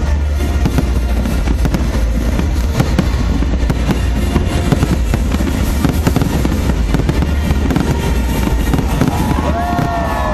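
Aerial fireworks bursting and crackling in a dense, continuous barrage, many sharp reports overlapping. Gliding tones come in near the end.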